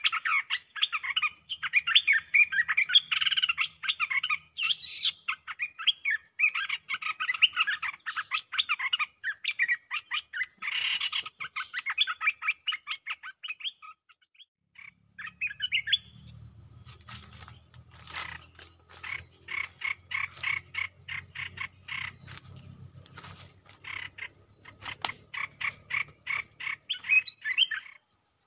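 Caged decoy bulbul calling: a busy run of chirpy song phrases, a short pause about halfway, then quick repeated short notes. A steady high insect buzz runs beneath, and a low hum joins in the second half.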